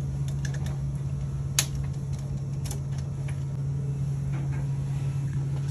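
Scattered sharp clicks and taps of a screwdriver working on a removed Square D circuit breaker as its wire is unscrewed, the loudest about a second and a half in, over a steady low hum.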